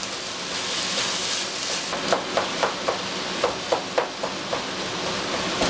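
Minced meat and ham sizzling in a pot as it is stirred with a wooden spatula. The spatula knocks against the pot in a run of quick taps, about three or four a second, from about two seconds in.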